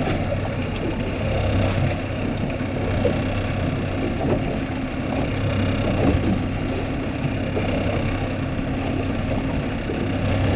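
A boat's engine running steadily, heard from on board: an even low hum over a constant hiss.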